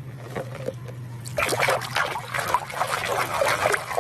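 Water splashing and trickling as a muddy plastic toy is washed, starting about one and a half seconds in and going on unevenly, over a low steady hum.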